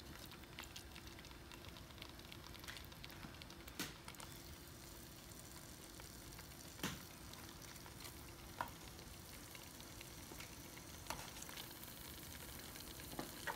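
Faint sizzling and bubbling of thick tomato curry gravy simmering in a pot on a live burner, with a few light clicks of tongs against the pot and tray.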